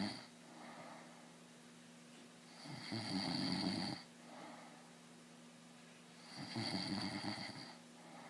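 A man snoring in his sleep: two long, loud snores about three and a half seconds apart, each followed by a softer, shorter breath.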